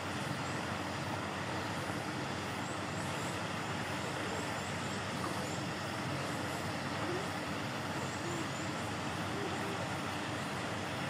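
Steady, even background noise with no single clear source, with faint short high chirps now and then.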